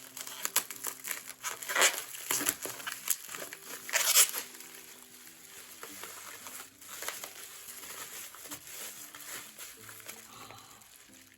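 Bubble wrap being handled and pulled off a boxed model, crinkling and rustling in irregular bursts, loudest about two and four seconds in. Soft background music runs underneath.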